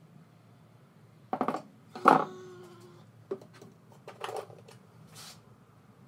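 A metal palette knife clattering down onto the work table, landing with a sharp knock and a brief metallic ring about two seconds in, after a quick rattle of clicks; a few lighter knocks and taps follow.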